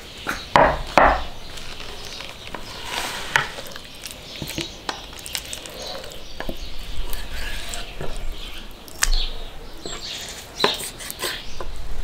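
Raw chicken thighs being handled and trimmed on a wooden cutting board. A plate knocks down onto the board near the start, then come soft wet slaps and rustles of the skin and meat, with scattered sharp taps of a knife and plate against the board.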